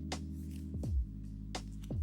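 Background music: sustained mellow chords over a soft beat with a low thump about once a second.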